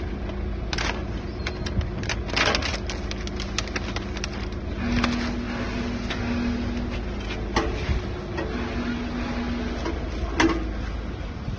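Occasional knocks and clinks of metal parts being handled on a powder packing machine during a bag-former change, over a steady low rumble and hum.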